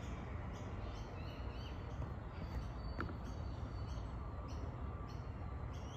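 Faint bird chirps, short and high, repeating about twice a second over a steady low outdoor rumble, with one light click about three seconds in.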